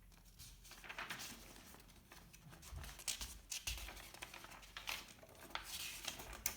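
Pages of a small paper manual being turned and handled: soft, irregular rustling, with stronger crinkles about three seconds in and near the end.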